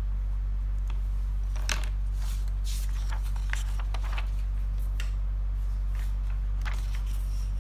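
Paper rustling as a page of a clipped pad of scratch paper is lifted and turned over, in several short rustles from about a second and a half in until near the end, over a steady low hum.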